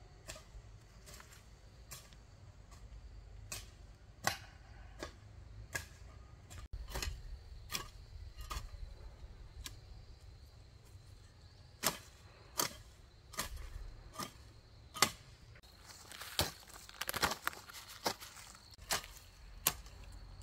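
Hand hoe chopping into weedy garden soil, a sharp strike about once a second, coming quicker for a few strokes near the end.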